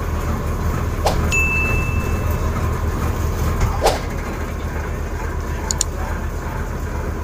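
Shrimp trawler's diesel engine droning steadily. A few sharp clicks sit over it, about a second in, near four seconds and near six seconds, with a short high beep after the first.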